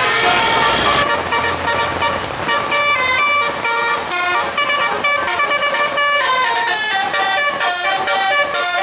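Basuri musical telolet bus horn playing a fast tune, its notes changing several times a second. A bus engine runs low underneath in the first couple of seconds.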